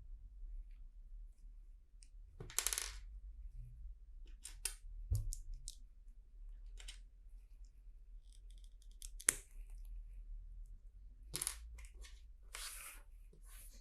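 LEGO plastic bricks being handled and fitted: scattered small plastic clicks and clatters, with a few short rustles.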